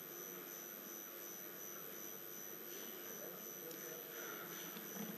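Faint room tone: a steady low hiss and hum with a thin, high-pitched whine, and no distinct event.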